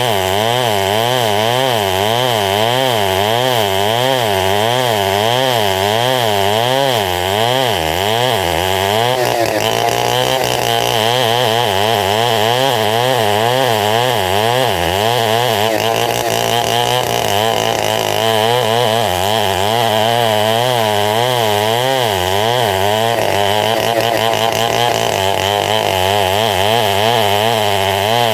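Engine-driven homemade sawmill running continuously and sawing gmelina wood into boards. Its pitch wavers in a steady wobble about twice a second.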